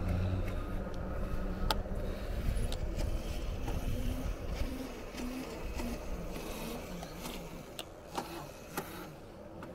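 Riding an electric fat-tyre bike: low rumble of wind and tyre noise with a faint motor hum whose pitch wavers, and a few sharp ticks about two seconds in and near the end.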